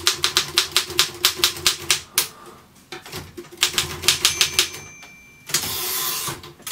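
Royal KMM manual typewriter being typed on, quick key strikes about six a second, then a pause and a few more strokes. About two-thirds of the way through its margin bell rings, followed by about a second of rushing, rattling sound as the carriage is returned.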